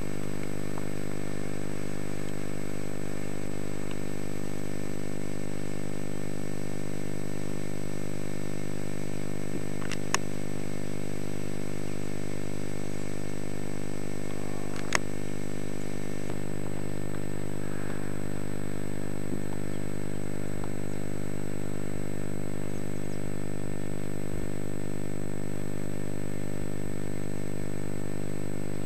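A steady, unchanging low hum, with two faint sharp clicks about ten and fifteen seconds in.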